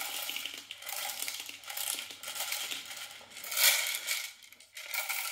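Plastic airsoft BBs tipped out of an AK high-capacity magazine, rattling as they pour into a BB container in uneven surges.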